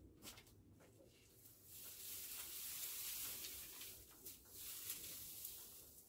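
Dried grass and weeds for kindling rustling and crackling, a dry hiss that rises about two seconds in and lasts about four seconds, with a few light clicks before it.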